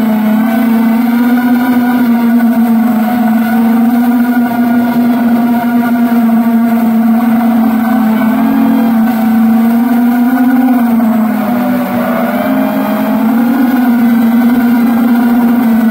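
A motor running steadily at speed, a strong hum with overtones whose pitch wavers a little and dips briefly about twelve seconds in.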